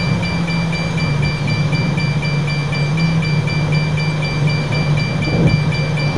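A car driving along a road, heard from inside the cabin through a dashcam microphone: steady engine drone and road noise with a thin high-pitched whine over it. A brief louder rumble comes about five seconds in.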